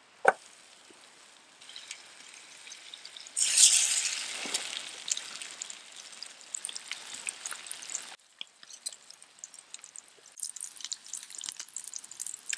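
A sudden loud sizzle about three and a half seconds in, fading into a spatter of small crackles and pops, like something wet hitting a hot campfire. After a break about eight seconds in, the crackling goes on more sparsely.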